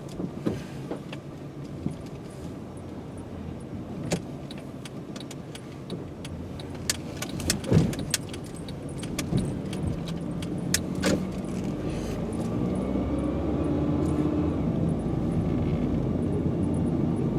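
Car engine and road noise heard from inside the cabin, building as the car pulls away and speeds up, with scattered sharp clicks and rattles, thickest in the middle.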